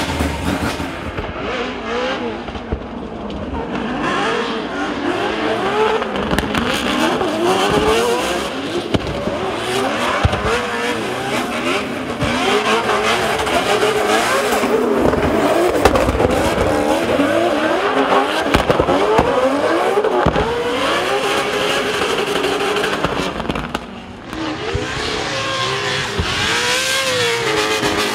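Drift car on track, its engine revving up and down through the drift over the hiss of squealing tyres, with a short lull near the end.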